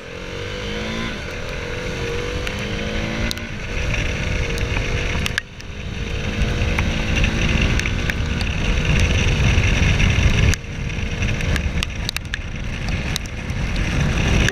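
KTM 390 Duke's single-cylinder engine accelerating hard through the gears, its note rising and breaking off at each upshift, with a sudden drop about a third of the way in and again about two-thirds in. Heavy wind rush over the bike-mounted camera runs under it throughout.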